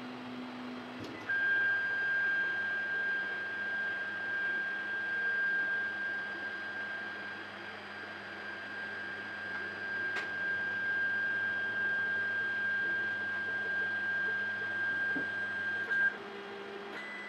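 FABX XL 3D printer's stepper motors driving the print bed steadily upward as it homes at the start of a print: a steady high whine that starts about a second in and stops near the end, over a low hum.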